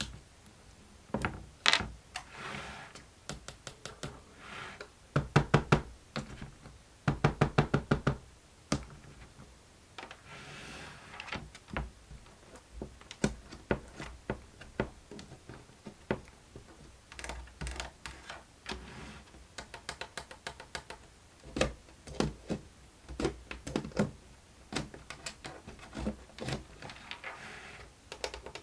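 Plastic fidget busy board being played with: scattered knocks and taps, with two runs of fast clicking, like a ratchet, about five and seven seconds in.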